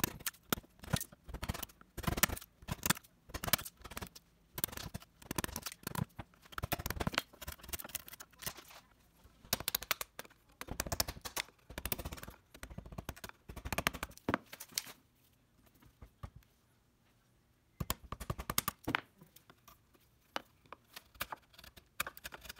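Hand woodworking tools working a piece of wood: runs of short, sharp scraping and cutting strokes, broken by a pause of a few seconds about two-thirds of the way through.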